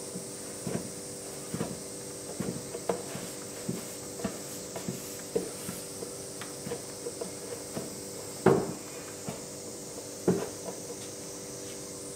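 A ball of buckwheat soba dough being kneaded by hand in a lacquered wooden kneading bowl: soft, irregular thumps and knocks, about one or two a second, as the dough is pressed and turned against the bowl. Two thumps a little past the middle are louder. This is the final kneading of the dough, before it is shaped.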